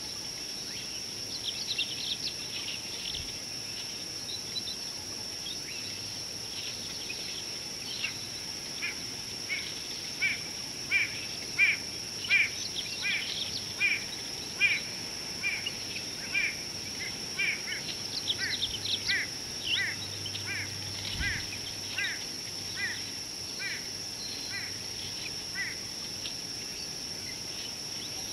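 A wild bird calling a long series of short, evenly spaced notes, about two a second, over a steady high-pitched whine. A few looser calls come before the series starts.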